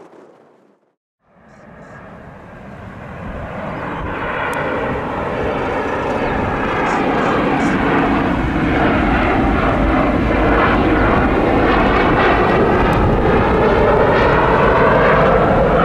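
Two GE CF34-10E turbofans of an Embraer 190/195 airliner on final approach, rising out of a brief silence about a second in and growing steadily louder as the jet nears, then holding loud, with slowly shifting tones running through the engine noise.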